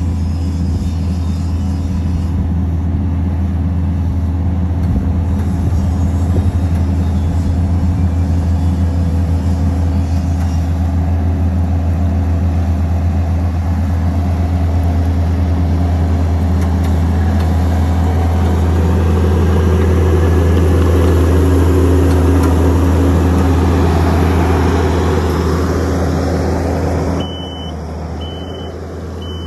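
Kubota compact track loader's diesel engine running steadily under load while grading soil with a blade. Near the end the sound drops and a reversing alarm starts beeping about once every 0.8 seconds.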